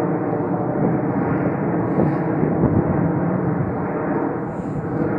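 Jet engines of a four-engine Boeing 747 airliner passing overhead: a deep, steady, even engine noise with no distinct tones.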